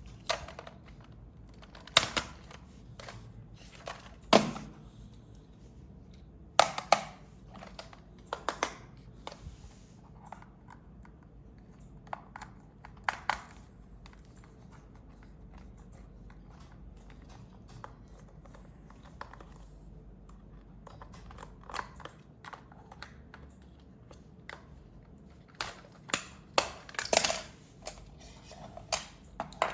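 Hands handling hard plastic toy parts and packaging, making irregular sharp clicks and taps. The loudest clusters come about two and four seconds in, around seven to nine seconds, and again near the end.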